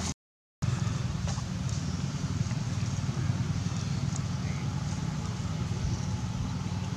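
Steady low rumble of outdoor background noise, with a few faint light ticks. The sound cuts out completely for about half a second near the start.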